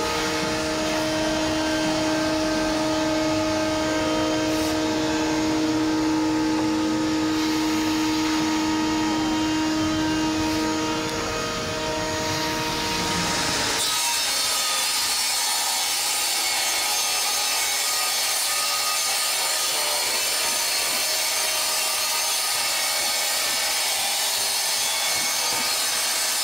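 A vertical panel saw running and cutting through a sheet of acrylic, a steady, hissy cutting noise. Before that, a steady machine hum with several held tones stops about halfway through.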